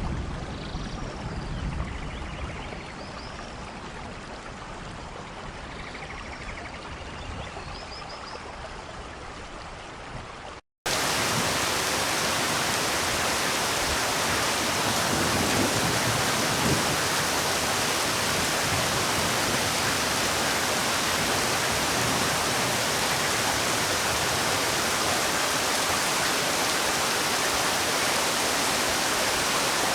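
Rain falling steadily, with a low rumble fading in the opening second and a few faint high chirps. About eleven seconds in the sound cuts abruptly to a much louder, even hiss of heavy rain.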